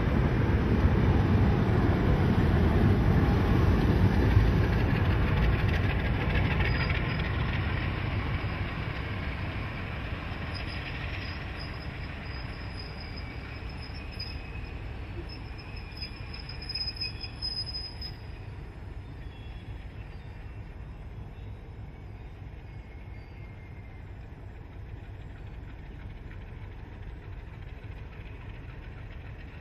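Passenger train rolling past with its trailing Alco 44 class diesel locomotive, a steady rumble of wheels on the rails that fades as the train draws away. A thin high wheel squeal sounds through the middle of the pass.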